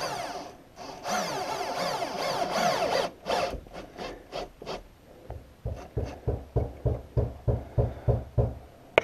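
Power drill driving a screw into wood, its motor pitch sliding up and down for about three seconds. After a short pause comes a quick, even run of about a dozen short knocks.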